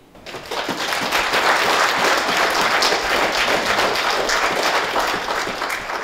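Audience applauding, swelling up within the first half second and then holding steady.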